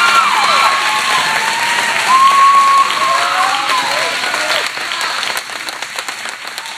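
A small audience applauding with whoops and cheers; the clapping thins out to scattered claps near the end.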